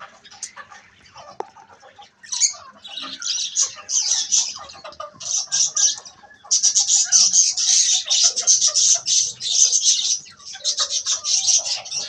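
Budgerigars chirping in rapid, raspy runs, starting sparse and becoming loud and almost unbroken from about halfway through.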